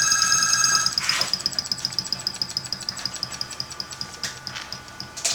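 Homemade solenoid engine running slowly, its tattoo-machine-style contact points and solenoid clicking in an even fast ticking of about five a second as the voltage is turned down. A steady high whine stops about a second in, and the ticking grows quieter after that.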